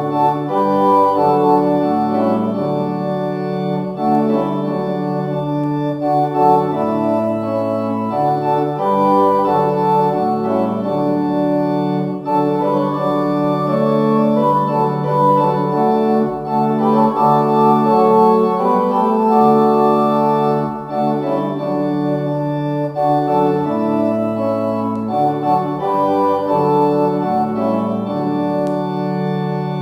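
Organ playing a slow piece in sustained chords that change every second or two.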